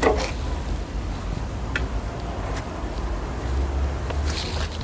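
Low, uneven rumble of wind on the microphone, with a few faint clicks and a rattle as the hinged engine side cover of a mini excavator is unlatched and swung open.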